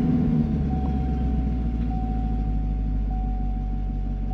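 Chevrolet Camaro LT1's 6.2-litre V8 idling just after start-up, the start-up flare easing into a steady low idle. A faint steady high tone runs over it.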